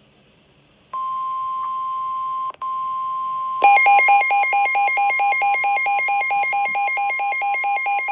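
NOAA Weather Radio's steady 1050 Hz warning alarm tone starts about a second in, with a brief break, signalling that a warning broadcast, here a flash flood warning, is coming. About three and a half seconds in, a rapid pulsing beep, about five a second and louder, joins over the tone.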